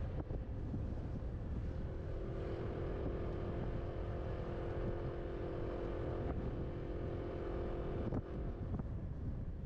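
Riding scooter with wind buffeting the microphone in a constant low rumble. A steady motor hum comes in about two seconds in and fades out near the end.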